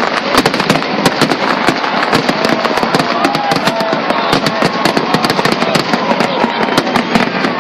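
Aerial fireworks display going off in a dense, rapid barrage: a steady run of cracks and bangs, many a second.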